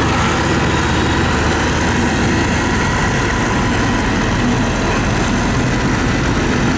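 Diesel engine of a heavy road-building machine, a motor grader or road roller, running steadily.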